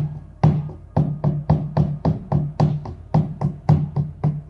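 Shamanic frame drum struck with a beater in a steady rhythm of about four beats a second, each beat leaving a low ringing tone.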